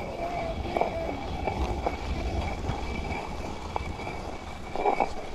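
Hand-turned stone quern grinding: the upper millstone is rolled round on the lower one by its wooden handle, making a steady low rumble.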